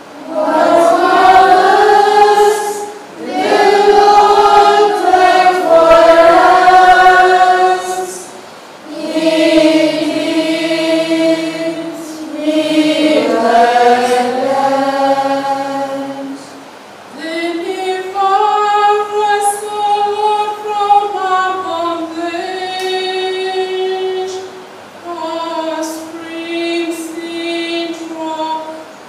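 The responsorial psalm sung to a simple chant-like melody, in about six phrases of held notes with short breaks between them.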